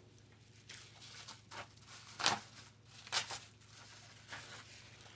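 Packaging of carded Hot Wheels die-cast cars being handled: plastic blisters and card crinkling and rustling in a handful of short bursts, the loudest about two seconds in and another just after three seconds.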